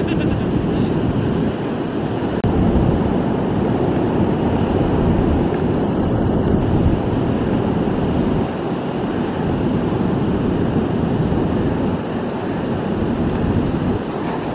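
Steady rushing of ocean surf mixed with wind on the microphone, swelling and easing slowly.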